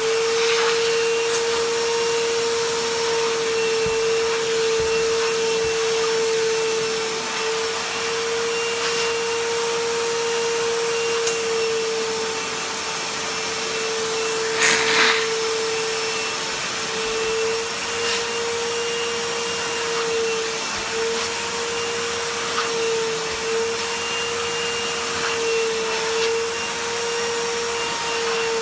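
Stanley FatMax 51733 1600 W wet/dry vacuum running steadily with a constant whine over its airflow rush. A brief sharp noise cuts through it about halfway through.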